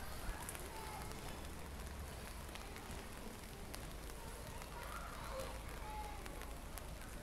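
Rainwater running in a street gutter along the curb: a steady watery wash with a few scattered small ticks.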